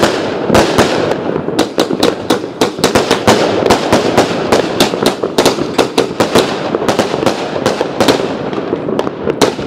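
Fireworks going off in a rapid, unbroken barrage: several sharp bangs and crackles a second, overlapping one another.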